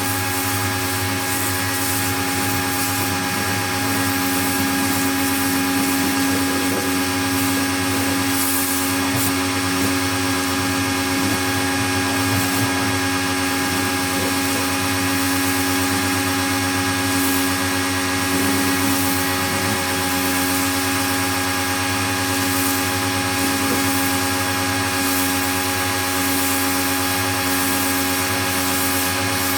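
Pro-Kleen 1600 pressure washer running steadily: a constant hum from its motor and pump, with the hiss of the spray jet over it.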